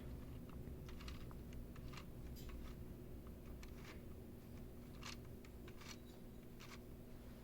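Light, irregular clicks of LEGO Technic plastic parts being handled and adjusted, over a faint steady hum.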